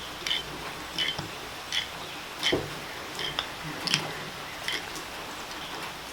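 A dozen or so light, irregular metallic clicks and taps as small carburetor parts and a screwdriver are handled during disassembly of an old updraft carburetor.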